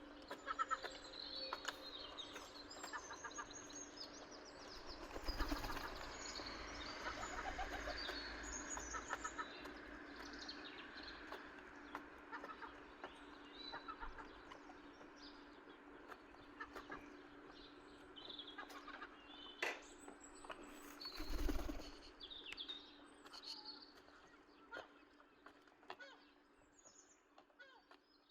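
A flock of seagulls calling, many short calls overlapping, busiest in the first third and thinning out towards the end. A single low thump comes about two-thirds of the way through.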